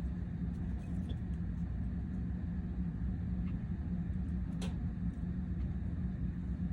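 Steady low hum in the background, with a faint small click about four and a half seconds in.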